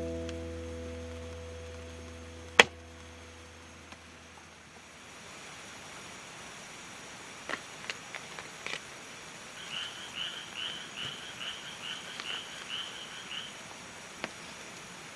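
A frog calling in the second half: a quick run of about a dozen short, evenly spaced notes over three or four seconds. Before it, the last strummed guitar chord rings out and fades, broken by one sharp click, which is the loudest sound.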